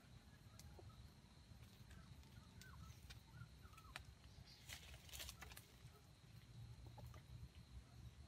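Near silence: faint forest ambience with a few soft bird chirps around three seconds in and a brief rustling about five seconds in, over a faint steady high tone.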